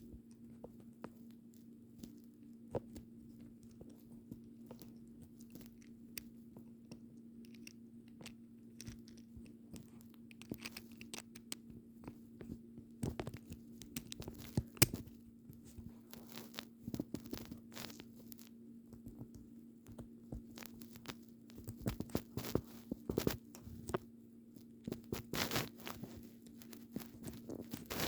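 LEGO Technic plastic pieces clicking and rattling as they are handled and pressed together, irregular and busier in the second half, over a steady low hum.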